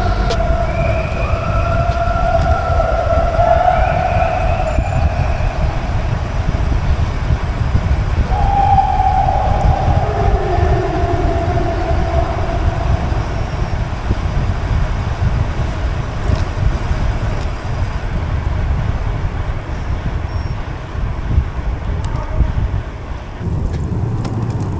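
Wind rushing over the camera microphone and tyre noise from a road bicycle ridden at speed through a road tunnel, a steady low rumble. Over it come long held hooting tones in the first few seconds and again about eight seconds in, the second sliding down in pitch.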